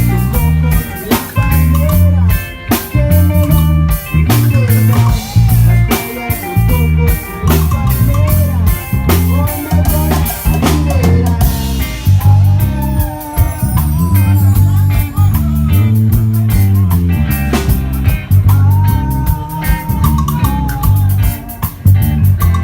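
Rock band playing: a drum kit keeping a steady beat under a strong bass line, with a guitar lead line that bends and glides between notes.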